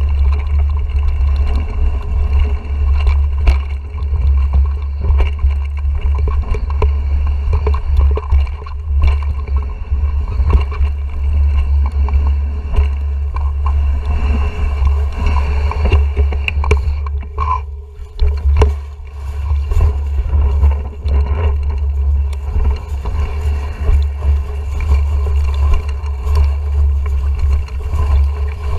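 Mountain bike rolling down a rough, rocky, leaf-strewn dirt trail, heard through a GoPro Hero 4: a constant low rumble with frequent clicks and rattles from the bike over the ground. It eases briefly a little past halfway, then picks up again.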